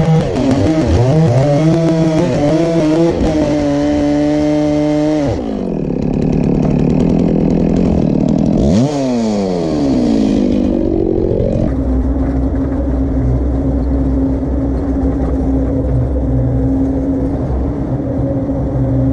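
Stihl petrol chainsaw cutting through a sycamore log, the engine's pitch wavering and bogging under load for about five seconds before it drops off. Near nine seconds the revs dip and climb again, and from about twelve seconds the engine runs at a steady, lower idle.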